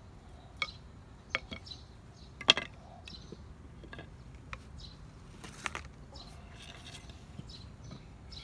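Wooden bucksaw frame pieces and hand tools being handled and set down on a wooden deck: several sharp knocks and clatters, the loudest about two and a half seconds in, with a short scrape a little past the middle.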